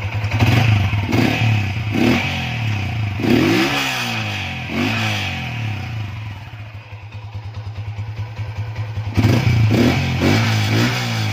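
Yamaha Exciter 150's single-cylinder four-stroke engine running through an Uma Racing V3 exhaust on an otherwise stock bike, revved in quick throttle blips over idle. A string of blips comes first, including one longer rev about three seconds in, then it settles to idle, and a second run of blips starts about nine seconds in.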